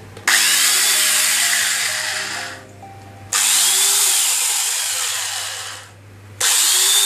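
Electric angle grinder fitted with a chainsaw bar and chain, run with no load in three short bursts about three seconds apart. Each starts suddenly, its pitch rising and then sagging, and dies away after about two seconds. The chain is left slightly slack, as it should be.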